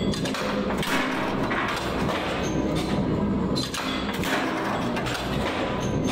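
Factory machinery running with a steady low hum, overlaid by irregular thuds and clatter, loudest about a second in and again near four seconds.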